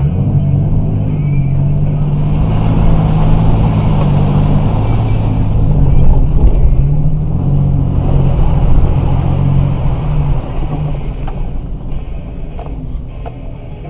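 Vehicle engine revving up and down while driving through deep puddles, heard from inside the cab, with water rushing and splashing against the body. The splashing swells midway and fades off near the end.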